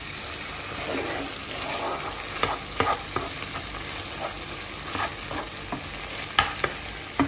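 Meat, onion and tomato paste sizzling in a non-stick frying pan as they are stirred together with a spatula, with scattered scrapes and taps of the spatula against the pan.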